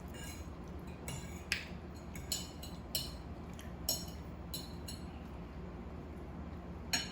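Cutlery and dishes clinking now and then during a seafood meal: about eight sharp, separate clicks at irregular intervals, over a steady low hum.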